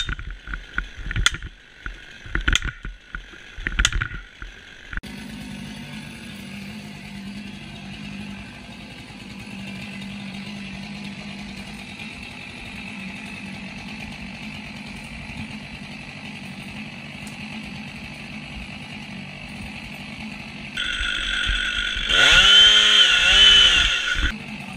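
A hatchet chopping into the trunk of an ash tree, five sharp strikes in the first few seconds. A steady low hum follows for a long stretch, and near the end a Stihl chainsaw comes up to full throttle and cuts into the trunk, its pitch dipping and rising as it bites.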